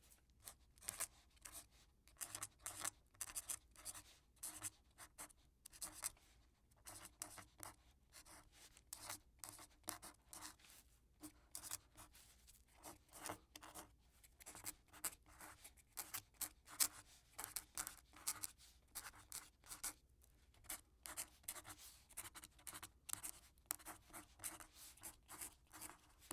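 Quill pen scratching across paper in quick, irregular strokes, with a few short pauses between bursts of writing.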